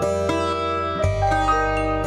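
Live chamber music from a piano, violin and percussion trio: a passage of sustained pitched notes with struck attacks over a low note re-struck every couple of seconds.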